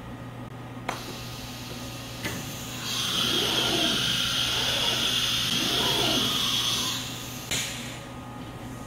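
Thermwood C67 five-axis CNC router head moving on its servo-driven rotate and tilt axes. There is a click about a second in and another near two seconds. From about three to seven seconds a loud whirring hiss runs, with motor whines rising and falling in pitch, and a sharp click comes at about seven and a half seconds, all over a steady electrical hum.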